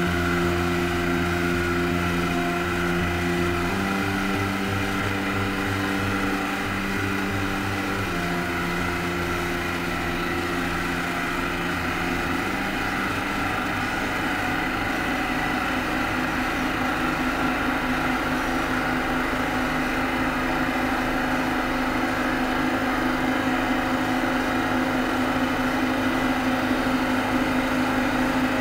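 Electronic ambient music: sustained synthesizer chords that change about every four seconds, giving way about halfway through to a steady low drone with a fast pulsing texture.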